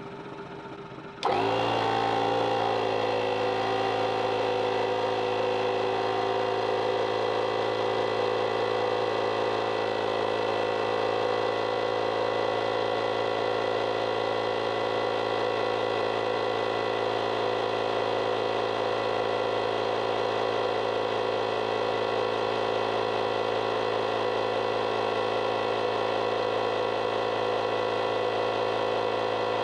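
FORTEM digital tyre inflator's electric air compressor switching on about a second in and running steadily, pumping up a car tyre.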